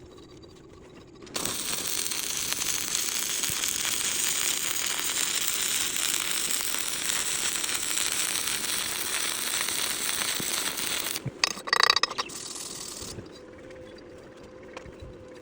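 Stick welding arc crackling steadily as a bead is run. It starts about a second in and stops after about ten seconds, with a brief sputter just after it breaks off.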